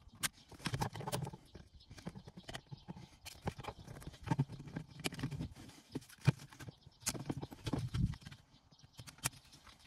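Plastic dash trim being worked with a screwdriver: irregular clicks, taps and knocks as small yellow retaining clips are pried off the centre dash surround, with a few heavier handling thuds.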